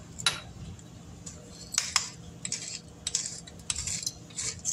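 Hand-twisted grinder grinding salt and pepper over the food: a series of short, irregular scratchy strokes.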